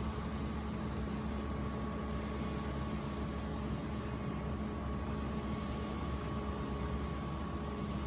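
A machine running steadily: a constant low rumble with a steady thin whine over it, with no crashes or impacts.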